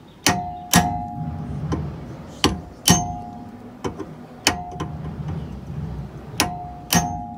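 Hammer blows on a steel punch set against a Kia Pride's rear wheel hub nut and lock washer, locking the nut in place. Sharp metallic strikes come mostly in pairs about half a second apart, each with a short ring.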